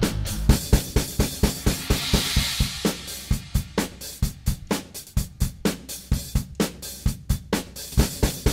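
Rock music: a drum-kit passage with fast, evenly spaced bass drum, snare and cymbal hits.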